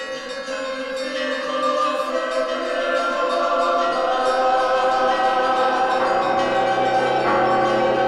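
Choir singing sustained chords with a musical backing, growing louder over the first few seconds and then holding steady.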